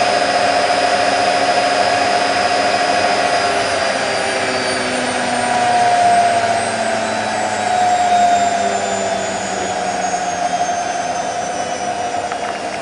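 Candy Nova CN146 washing machine in its 1400 rpm final spin, the drum and motor running with a high whine that slowly falls in pitch as the spin winds down.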